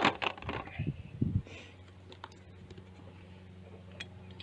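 Light clicks and knocks of a drill and its 4 mm bit being handled: a quick cluster in the first second and a half, then a few scattered clicks.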